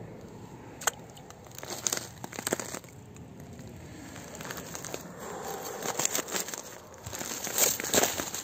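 Footsteps crunching through snow and broken chunks of ice: irregular crunches and crackles, a few at first, then coming faster and louder toward the end.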